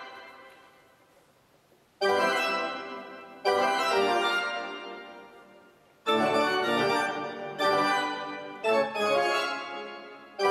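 Pipe organ played in short, loud chordal phrases that break off suddenly and ring out in a long reverberation: about six stop-start attempts at an improvised passage. It opens on the echo of a fast run fading away, with about two seconds of near-quiet before the first chord comes in.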